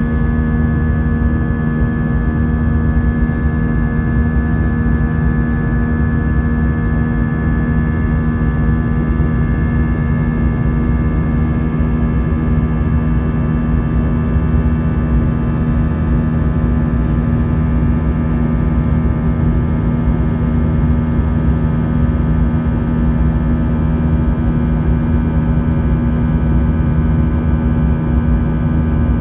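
Airbus A319 jet engines heard from inside the passenger cabin during the climb after take-off: a loud, steady drone with several held tones over a deep rumble.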